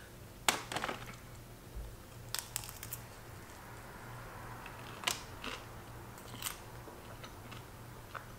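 Close-miked eating: a bite of food taken from chopsticks and chewed, with scattered sharp mouth and chopstick clicks and soft chewing sounds in between.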